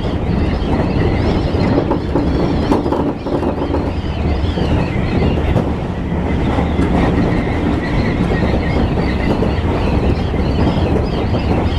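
Electric commuter train running at speed, heard from on board: a steady rumble of wheels on rail with a wavering high whine and an occasional knock. An oncoming train passes on the adjacent track partway through.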